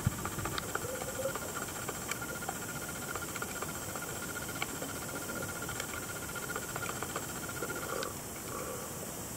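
Underwater sound picked up by a submerged camera: a steady hiss with scattered sharp clicks and crackles, and a thin steady whine that stops about eight seconds in.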